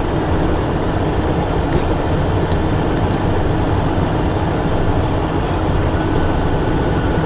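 Steady rushing noise of a Cessna Citation's twin turbofan engines and airframe, heard inside the cockpit, as the jet rolls along the runway. A few faint ticks come in the first three seconds.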